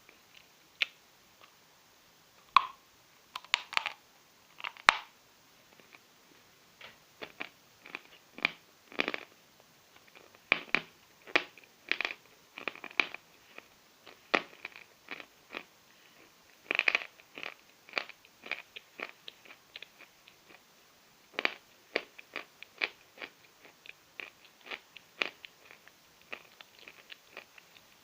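Natural chalk being bitten and chewed: irregular dry, crisp crunches, at times several a second, with a few sharper snaps among them.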